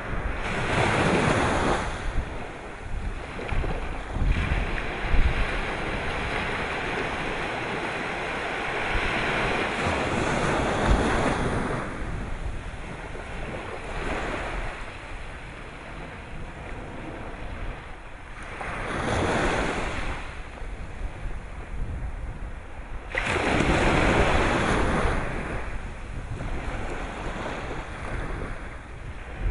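Sea waves breaking and washing in, rising and falling in surges every several seconds, with wind buffeting the microphone.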